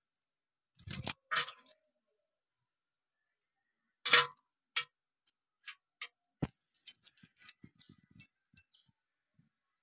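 A thin wooden stick knocking and tapping against a softshell turtle and its basin: two sharper knocks, then a run of light, uneven ticks.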